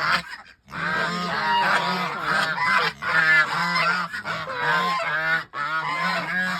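A flock of geese honking over and over, many calls overlapping, after a brief pause about half a second in: the birds are calling to be fed.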